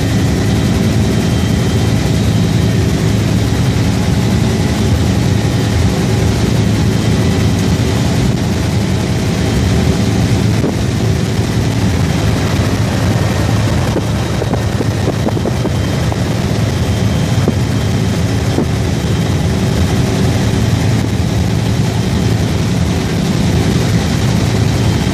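Helicopter engines and rotor heard from inside the cabin in flight: a loud, steady drone with several constant whining tones over it.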